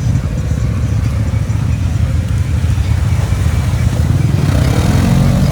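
Can-Am Outlander ATV's V-twin engine running steadily while being ridden, with a fast, even firing pulse that grows slightly louder about four seconds in.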